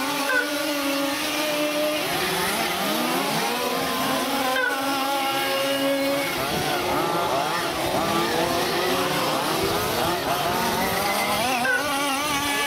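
Small two-stroke engines of several radio-controlled 4WD off-road racing buggies revving up and down as they lap the track. Their overlapping pitches keep rising and falling with throttle.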